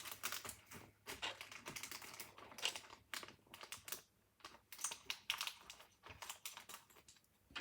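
Plastic keycaps clicking and clacking as they are handled and pressed onto a Ducky mechanical keyboard's brown switches. Quiet, irregular clicks.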